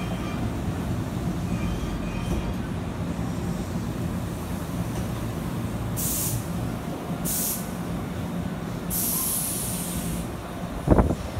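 Maroon Hankyu electric commuter train moving slowly along the platform, a steady low rumble and hum, with three short hisses of air about halfway through and near the end. A sharp knock comes just before the end.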